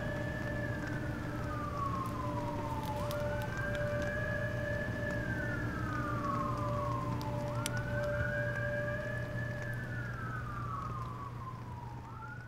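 Police siren wailing, in a slow rise and fall about every four and a half seconds, with occasional crackles from a campfire.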